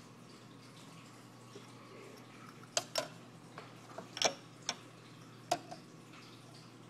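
About five sharp clicks and knocks of hard objects being handled and set down around an espresso machine, bunched together in the middle, over a faint steady hum.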